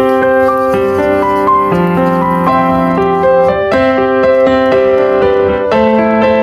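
Background music: a gentle piano or electric-piano tune playing a melody over chords.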